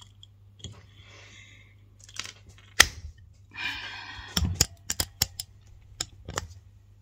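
Handling noise: scattered small clicks and taps, two short stretches of rustling, and a sharp click about three seconds in, followed by a run of knocks and taps as a hand reaches over and grabs the recording phone.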